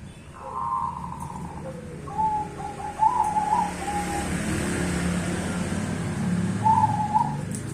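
Zebra dove (perkutut, black cemani Bangkok strain) cooing its song in separate phrases: one about half a second in, a longer run from about two to four seconds, and another near the end. A steady low rumble runs underneath.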